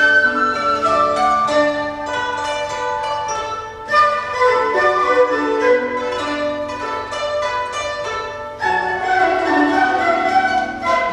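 Chinese traditional instrument ensemble playing live: bowed erhu lines over plucked pipa, zhongruan and guzheng, with dizi. New phrases come in with a sharp attack about four seconds in and again about eight and a half seconds in.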